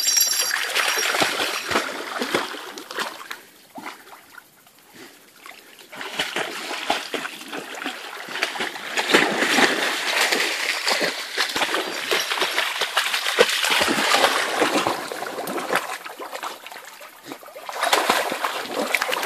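Two Barbado da Terceira dogs wading and splashing through shallow river water. The splashing dies down to a lull a few seconds in, picks up again, and ends with a burst of heavy splashing as one dog bounds through the water.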